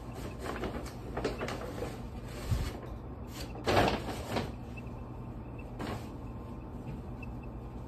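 A paper shopping bag rustling and crinkling as it is handled and clothes are pulled out of it, with the loudest crumple about four seconds in.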